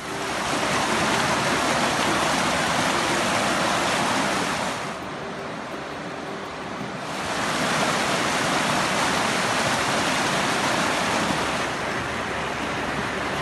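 Swollen, muddy river in flood after rain, its fast water rushing and churning over rocks in a steady noisy rush. The rush drops for a couple of seconds about five seconds in, and eases again near the end.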